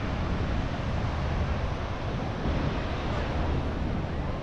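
Wind buffeting the microphone over the steady wash of ocean surf, with faint voices of beachgoers mixed in.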